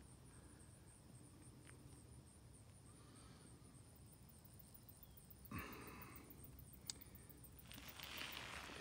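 Near silence with faint high insect chirping that repeats a few times a second. A brief rustle of handling comes about two-thirds of the way in, then a single sharp click, and a louder rustle near the end.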